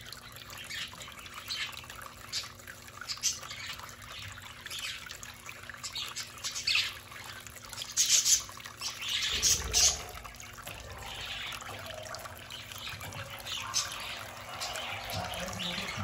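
Budgerigars chirping and chattering in short, sharp calls, busiest near the middle, over the steady trickle of a small bowl fountain, with splashing as one bathes in the water.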